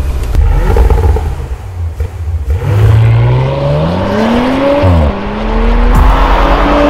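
Porsche Macan S V6 with a Capristo aftermarket exhaust accelerating hard: the exhaust note climbs in pitch, drops sharply at an upshift about two-thirds of the way in, then climbs again.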